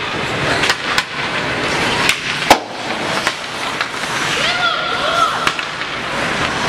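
Ice hockey game heard from the stands: sticks and puck clacking on the ice and boards, with a loud sharp crack about two and a half seconds in, over spectator chatter and shouted voices.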